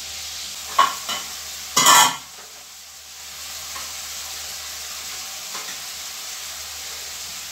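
A ladle stirring and scraping against a steel pot of chutney cooking on the stove, over a steady sizzling hiss. A couple of light clinks come just under a second in, and a louder rattling scrape follows about two seconds in.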